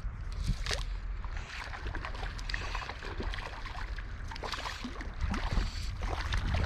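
River water running, with irregular splashes and sloshing at the water's surface.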